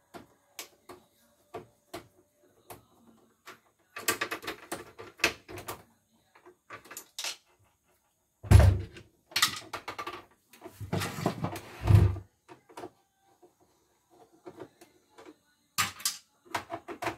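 Screwdriver clicks and rattling plastic as the housing of a portable embroidery machine is unscrewed and its side cover taken off, with heavy thumps as the machine is tipped and set back on the wooden bench, the loudest about eight and a half and twelve seconds in.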